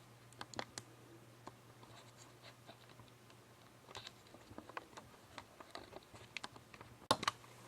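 Scattered small clicks and scrapes of a screwdriver and fingers working screws into a laptop's plastic screen lid, with a sharper pair of clicks near the end.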